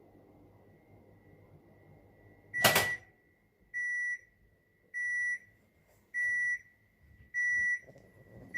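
Electronic beeps from a Panasonic drum washing machine's control panel: a sharp click with a high beep about two and a half seconds in, then the same high beep repeating evenly about every second and a bit, four more times.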